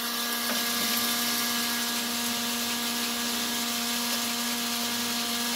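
Heat gun blowing into a flour-sifter coffee roaster while a right-angle drill turns the sifter: a steady motor hum with one constant pitch over an even rush of air.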